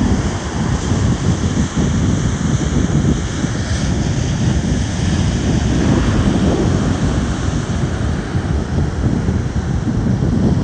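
Ocean surf washing in, with wind buffeting the microphone in a steady, low, rumbling rush.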